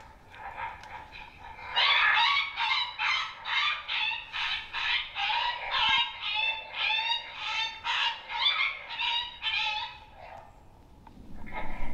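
A rapid series of coyote yelps and yips, about two to three a second, each dropping in pitch. The series stops about ten seconds in, and one short call follows near the end. It is a coyote call sound used to bring in a second coyote after a kill.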